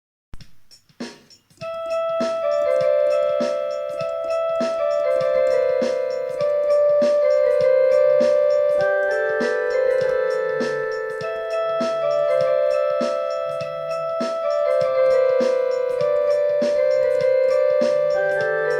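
Instrumental electronic keyboard tune in an electric-piano sound, a repeating melody of sustained notes over a low bass line with a steady ticking beat, starting about a second and a half in.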